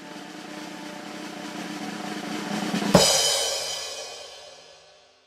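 A drum roll swelling steadily louder, ending about three seconds in with a sharp crash of cymbal and bass drum that rings on and fades away.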